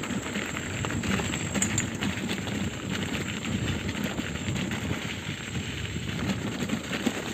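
Mountain bike rolling fast over a loose gravel and stone track: the tyres crackle over the stones and the bike rattles with the bumps, in a steady stream of small clicks.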